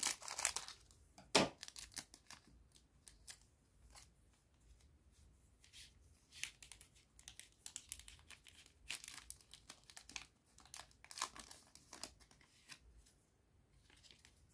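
Trading card booster pack wrapper being torn open and crinkled: scattered crackles and rips, with one sharp snap about a second and a half in.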